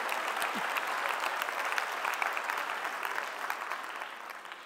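Theatre audience applauding, the clapping dying away near the end.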